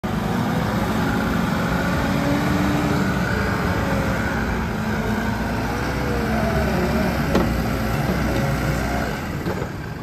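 Case 580 Super N backhoe's diesel engine running steadily as the machine drives and works its front loader, with one short click about seven seconds in.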